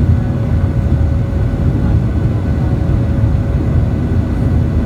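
Boeing 737-800's CFM56 jet engines and rushing air heard from inside the cabin in flight: a steady, loud low rumble with a faint constant whine above it.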